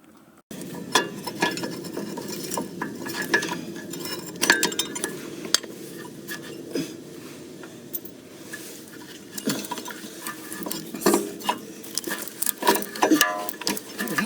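Metal tools and parts clinking and clattering, a run of sharp irregular clinks and rattles over a steady low hum, starting abruptly about half a second in.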